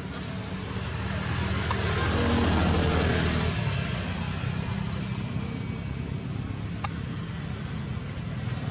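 A motor vehicle's engine passing, growing louder to a peak about three seconds in and then fading to a low steady hum.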